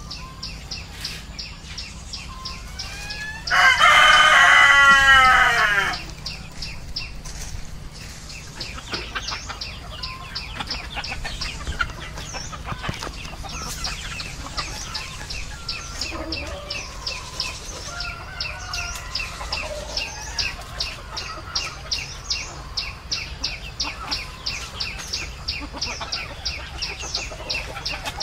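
A rooster crows once, loud, about three and a half seconds in, the call lasting a couple of seconds. Afterwards chickens cluck softly over a fast, steady high ticking.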